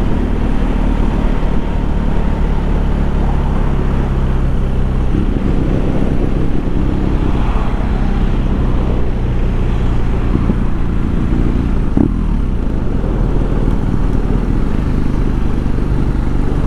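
BMW R nineT's boxer-twin engine running steadily at road speed, heard from the rider's mount, over a constant rush of wind and road noise. The engine note changes briefly about twelve seconds in.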